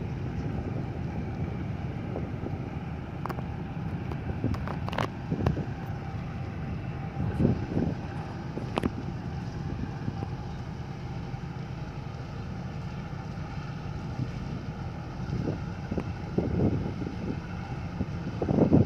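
Tugboat's diesel engine running steadily as it brings a barge in, with wind buffeting the microphone. A few brief knocks come about three to five seconds in and again near nine seconds.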